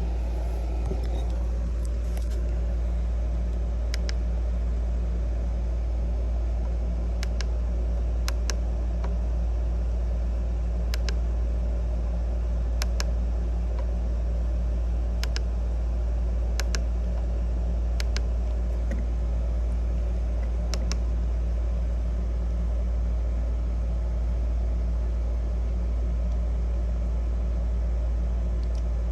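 Dead air on a NOAA Weather Radio broadcast: a steady low hum with a faint hiss, broken by a dozen or so sharp clicks at irregular moments.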